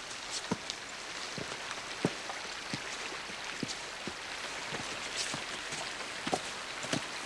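Hikers' boots on a rocky mountain path: irregular crunches and scuffs on stone and gravel, about one or two a second, over a steady hiss.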